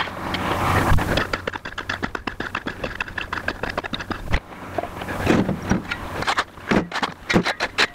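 Hand tools working broken rock: a rake and a steel shovel scrape over rocky ground while rock fragments clatter, in a quick, uneven run of clicks and knocks. A scraping hiss is strongest in the first second or so.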